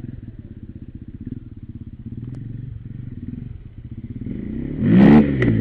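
Dirt bike engine running with a rapid, even putter, then revved hard about five seconds in, the pitch rising and falling again.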